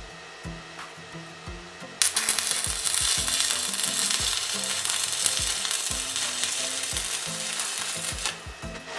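Stick (arc) welding on thin steel: the electrode's arc strikes suddenly about two seconds in and crackles and sizzles evenly for about six seconds, then stops as the arc is broken.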